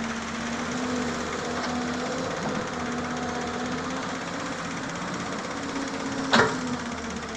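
Doosan 140 excavator's diesel engine running steadily with a hum, and one sharp knock about six seconds in.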